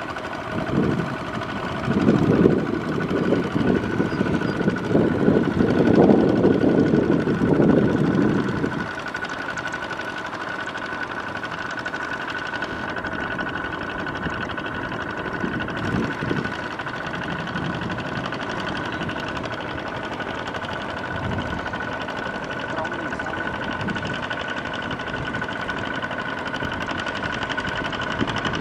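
Two-wheel walking tractor's single-cylinder diesel engine running steadily as it pulls its cage wheels through a flooded rice paddy, with a steady high engine tone. A louder, deeper noise fills the first nine seconds or so, then stops.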